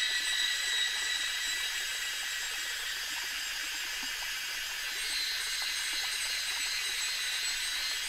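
Evening insect chorus over wooded hills: a steady high buzzing hiss, with thin shrill tones that fade out in the first few seconds and come back about five seconds in.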